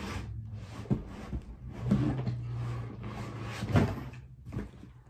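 Knocks and clunks of storage containers and belongings being handled during packing, with a few sharper knocks about a second, two seconds and nearly four seconds in.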